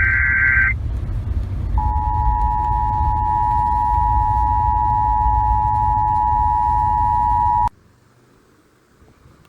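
Emergency Alert System broadcast over AM radio: the last of a SAME data burst warbles for under a second. After a short gap, the EAS two-tone attention signal sounds steadily for about six seconds and cuts off suddenly, over a low rumble of AM reception noise.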